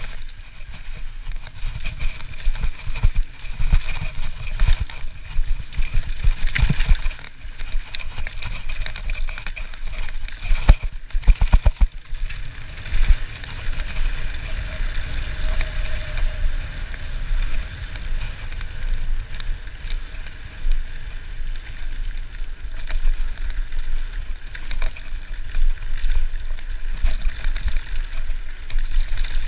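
Trek Slash full-suspension mountain bike descending a dirt trail: knobby tyres rolling over dirt and gravel, with the bike knocking and rattling over bumps over a constant low rumble. A quick run of hard knocks about eleven seconds in, then a steadier rolling hiss on a smoother gravel track.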